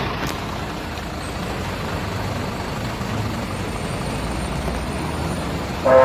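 Bus engine running with steady road rumble. Near the end a multi-tone telolet horn starts playing its loud stepped melody.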